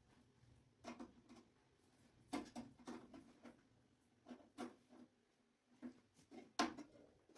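Irregular light clicks and knocks, about a dozen, from the parts of a microwave oven being handled.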